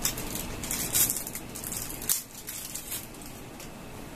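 Handling noise from a small microphone being held and moved about: irregular rustling and scratching, busiest in the first two seconds, then fainter.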